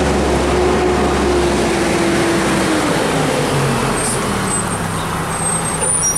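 A Waste Management rear-loader garbage truck's engine running as the truck pulls out of a lot and turns toward the street. A tone slides down in pitch over the first few seconds, the deep rumble eases, and a few short high squeals come near the end.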